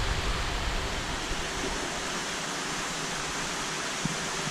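Steady rushing hiss of moving water in a large aquarium tank, picked up by a camera held under the surface.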